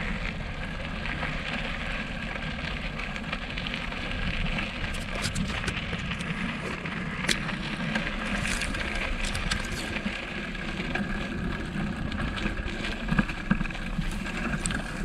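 Bicycle being ridden: a steady rumble of riding noise with scattered small clicks and rattles, most of them in the middle of the stretch.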